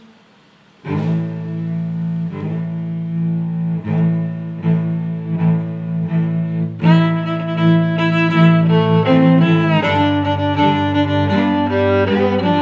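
Background music of bowed strings, starting suddenly about a second in with repeated low sustained notes, and a fuller, higher string line joining about halfway through.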